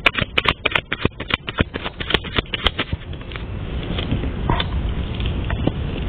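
Tarot cards being shuffled and handled: a quick run of crisp card clicks for about three seconds, then a few softer ones.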